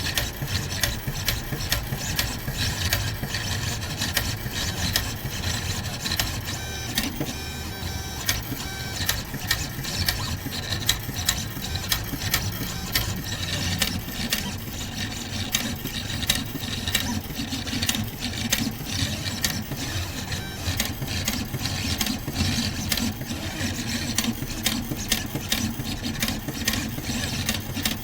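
Pen plotter drawing: its stepper motors run in constantly changing whirring and buzzing movements, with many sharp clicks throughout.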